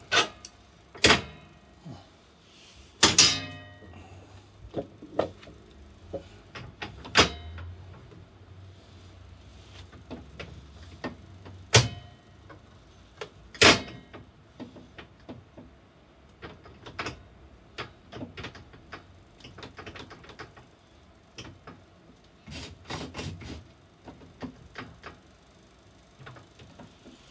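Sharp clicks and knocks of hand work on a table saw's metal rip-fence lock lever as a golf ball is fitted onto it as a knob, with a short ringing clang about three seconds in. The loudest knocks come singly, a few seconds apart, with lighter tapping between them.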